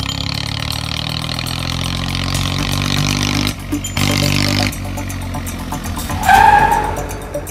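Tractor engine running steadily, a low droning hum, briefly broken about three and a half seconds in. Near the end a short, loud high-pitched tone rises above it.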